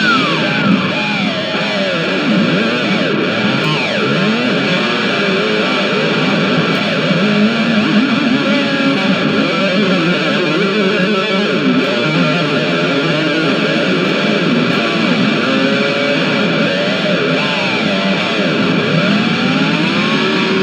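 Electric guitar played through distortion and effects, its notes sweeping and sliding up and down in pitch.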